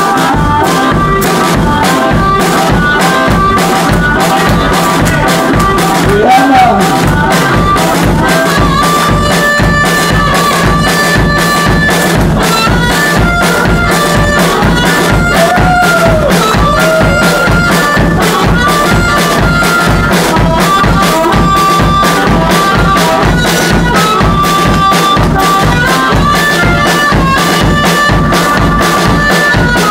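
Blues harmonica played into a handheld bullet microphone over a fast, steady drum beat, a chugging train-rhythm shuffle of held and repeated notes with a couple of sliding notes.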